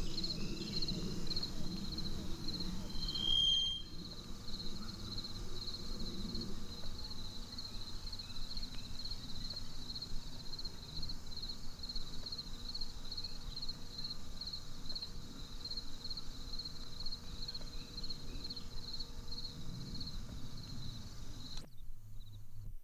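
Insects chirping in a steady high pulse, about two chirps a second, over a low murmur. The chirping stops abruptly near the end.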